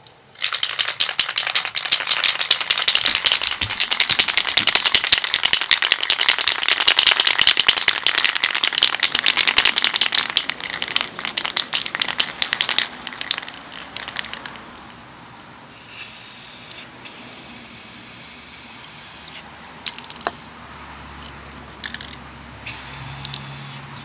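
Aerosol spray paint cans shaken hard, the mixing balls rattling rapidly for about thirteen seconds. Then paint is sprayed onto water for hydro dipping, in hissing bursts, a long one and a shorter one near the end.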